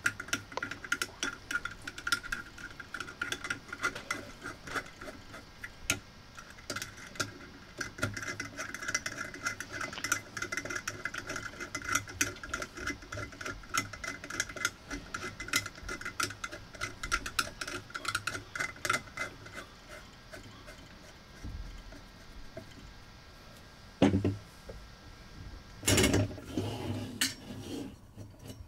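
Screwdriver driving the screws of a chrome tub and shower escutcheon plate: many small metallic clicks and scrapes of the tool against the screws and plate. Near the end come a few louder knocks.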